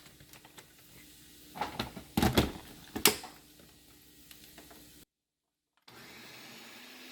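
Kitchen blender loaded with tomatillos, chiles, garlic and onion for green salsa: a cluster of knocks and a short loud burst about two seconds in as it is handled and started. After a brief dropout, a faint steady hum follows.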